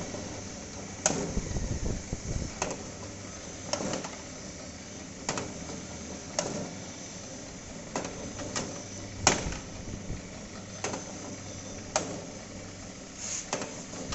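Fada (split) areca nut cutting machine running on its 0.5 HP single-phase motor: a steady low hum with a sharp click about every second and a half, as the cutter strikes and splits each nut in two.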